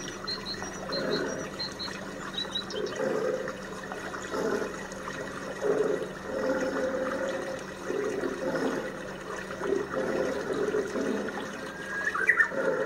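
Tigers growling during mating in a string of short, low calls, about one every second.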